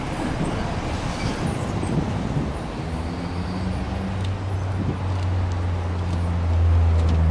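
2004 Subaru Legacy Touring Wagon 2.0GT spec.B's turbocharged EJ20 flat-four idling, heard at its twin tailpipes as a low exhaust rumble that steadies into an even hum about three seconds in.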